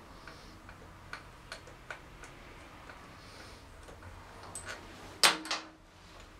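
Light metallic clicks from hand work at a motorcycle's rear wheel hub: four evenly spaced about a second in, then a sharp metal clank about five seconds in that rings briefly, with a smaller clink just after.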